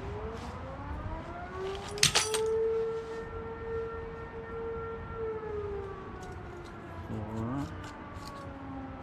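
A siren wailing: its pitch rises over the first two seconds, holds steady, then falls slowly for the rest of the time. A sharp click sounds about two seconds in, and a short rising tone cuts in near the end.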